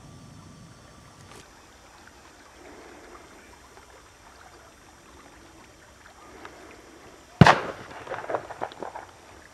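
A single shotgun shot goes off about seven seconds in, sudden and loud. A second or so of irregular rustling knocks follows.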